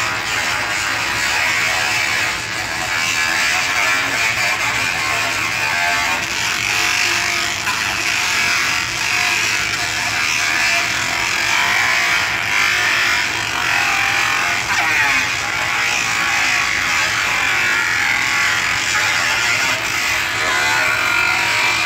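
Laser engraving machine at work: a continuous buzzing whine from the moving laser head over a steady low hum.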